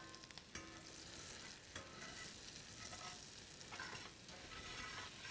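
Butter, onions, jalapeños and freshly added garlic sizzling faintly in a hot cast iron skillet, with a few faint clicks.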